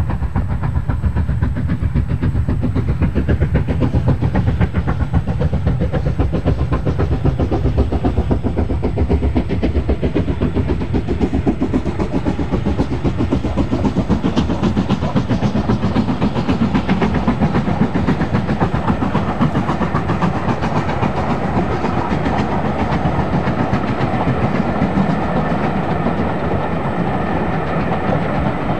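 LMS Black Five two-cylinder 4-6-0 steam locomotive No. 44767 working a passenger train, its exhaust chuffing in a steady, rapid beat as it passes, with the train's running noise on the rails.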